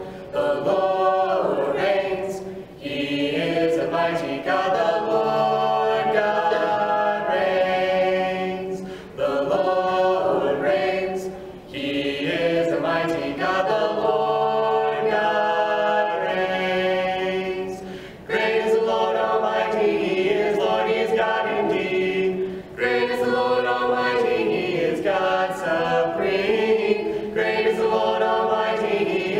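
Mixed vocal quartet, two men's and two women's voices, singing a worship hymn a cappella in close harmony, in long phrases with brief breaths between them.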